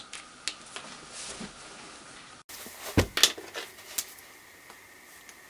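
Handling noise: a low thump and a short run of light knocks and clicks about three seconds in, over faint room noise with a thin steady high hum.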